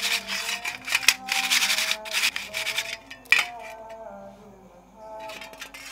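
Bicycle chain being scrubbed by hand in a metal dish of cleaning liquid: the links rattle and scrape against each other and the dish. It is loud for the first two and a half seconds, quieter after, with another short burst near the end.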